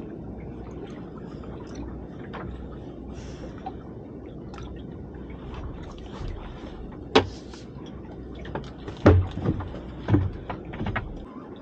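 Water sloshing and lapping against the hull of a small open fishing boat, a steady low wash, with a sharp knock about seven seconds in and a cluster of thumps and knocks on the boat near the end.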